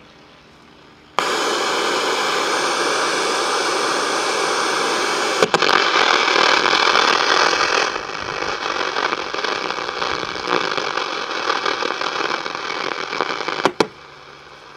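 Vintage Sanyo Campanetta 7-band radio hissing loud, steady static from its speaker with no station coming through. The hiss starts suddenly about a second in, changes tone partway through, and near the end sharp clicks of the band pushbuttons cut it down to a quieter hiss.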